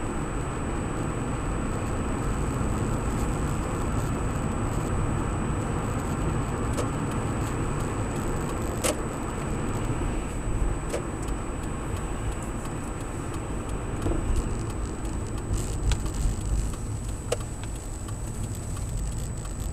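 Car driving, heard from inside the cabin by a windscreen dashcam: steady engine and tyre noise on a wet road, with a few sharp clicks or rattles now and then and a faint constant high-pitched tone.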